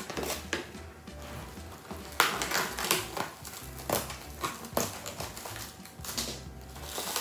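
Plastic cling wrap crinkling and tearing in a run of sharp rustles as it is cut and peeled off takeout food containers, over background music.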